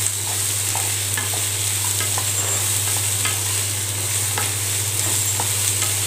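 Chopped vegetables sizzling in hot oil in a nonstick kadai as a wooden spatula stirs them, with scattered light scrapes and taps of the spatula against the pan. A steady low hum runs underneath.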